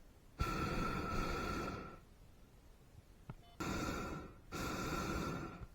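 Hot air balloon's propane burner firing in three blasts, a steady roar with a whistling tone. The first blast is about a second and a half long and the two near the end are about a second each.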